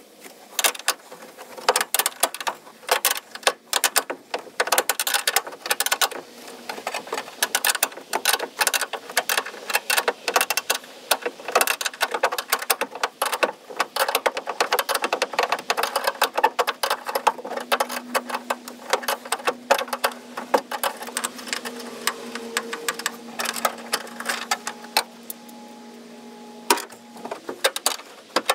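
Rapid, irregular metallic clicking and rattling of hand tools and fasteners as the tail-light panel is worked on inside a car trunk.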